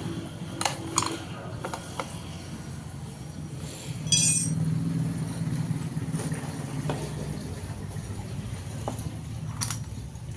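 Light metallic clinks and knocks of small metal parts being handled, the loudest a ringing clink about four seconds in, over a steady low rumble.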